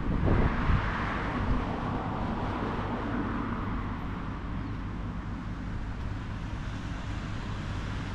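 Wind buffeting the microphone in low rumbling gusts during the first second, then a steady rushing outdoor noise that swells about a second in and slowly eases off.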